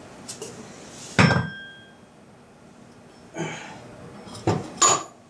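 A sharp metallic clank, like a metal tool or part set down or knocked on metal, rings briefly about a second in. A few lighter knocks and clatters follow near the end.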